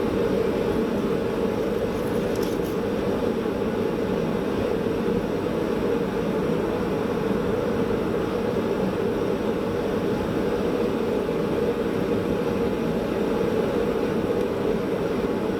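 Forge running steadily as it comes up to temperature: an even, unchanging rushing noise from its burner or blower.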